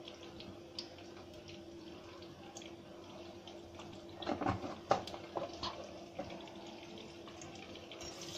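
Boiled eggs and potatoes frying in oil in a nonstick kadai: a quiet, steady sizzle with scattered crackles and pops, a cluster of louder pops about four to five seconds in. A faint steady hum sits underneath.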